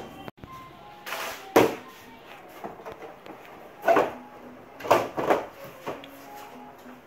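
Hollow plastic knocks and clatter as a TV's large back cover and panel are handled and set down on a workbench: about half a dozen sharp knocks, the loudest about a second and a half in, at four seconds and at five seconds.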